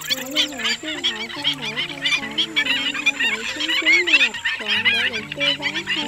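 Dense, overlapping calling of a flock of black-winged stilts and other shorebirds: many short, sharp yapping notes with no let-up, from a lure recording used to call migrating flocks down. Lower held and sliding tones run beneath.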